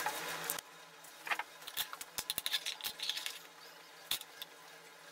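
Light clicks and taps of a clear plastic ruler, a protractor and a marker being handled against a plastic enclosure lid on a wooden desk. The taps come in a scattered cluster from just over a second to about three seconds in, with one sharper tick about four seconds in. A hiss cuts off about half a second in.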